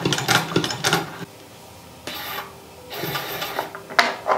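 A 1930s Singer hand-crank sewing machine stitching, with quick mechanical clicking and clatter for about the first second before it stops. Fabric then rustles as the sewn piece is drawn out, and there is one sharp click near the end.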